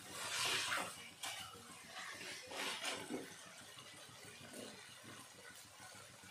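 Silicone spatula stirring and scraping boiled potatoes and tomato masala around a kadai: a few short scraping, squelching strokes in the first three seconds, then quieter.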